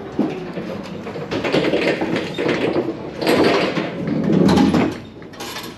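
Hand pallet truck pulling a stack of empty wooden pallets across a truck trailer's floor: wheels rumbling and pallets rattling in three loud stretches, with a sharp knock at the very start.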